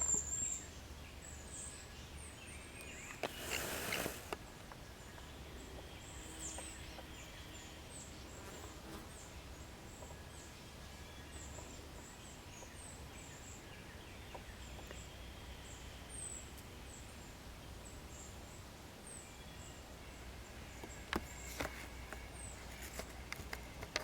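Cedar waxwings calling: many short, very high, thin notes, repeated every second or so, over steady outdoor background noise. A brief burst of noise about three seconds in, and a few clicks near the end.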